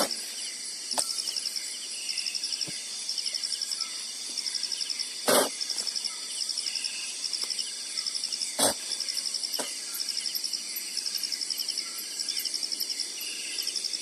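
Forest insects, crickets among them, chirping steadily in repeated high-pitched trains over a continuous high hum. There are three sharp knocks: one at the start, one about five seconds in and one about eight and a half seconds in.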